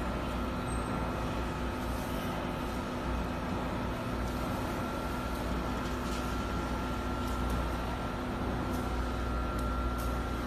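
Short-cycle melamine hot press line running: a steady machine drone with a constant low rumble and a steady high whine, and a few faint clicks.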